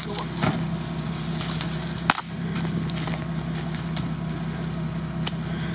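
A vehicle engine idling steadily, with a few sharp cracks and light crackling from a stick prodding frozen mud and brush.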